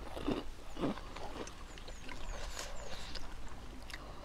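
Close-miked eating sounds: chewing and mouth smacking while eating rice and chicken curry by hand, with small clicks as a spoon is worked in the curry dish.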